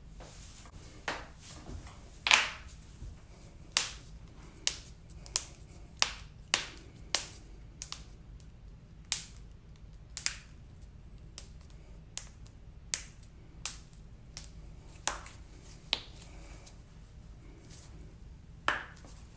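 Joints cracking: a string of sharp, separate pops about one a second at an uneven pace, the loudest a couple of seconds in.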